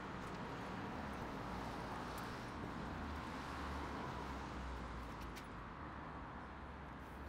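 Steady city road-traffic noise: a continuous hum of passing cars with a low rumble.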